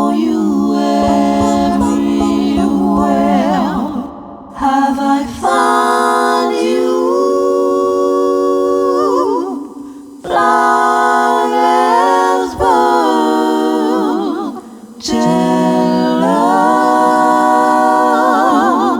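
A woman's voice multitracked into close a cappella harmonies, with no instruments. She sings long held notes in phrases of a few seconds, breathing between them, with vibrato at the ends of phrases.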